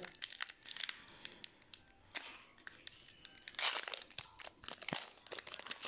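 Crinkling and rustling of a Magic: The Gathering booster pack's foil wrapper and cards being handled: a run of small crackles and clicks, with a louder rustle about three and a half seconds in.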